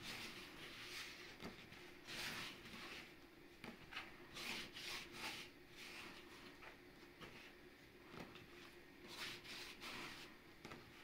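Hands kneading soft yeast dough: faint, irregular rubbing and pressing swishes, a few every second.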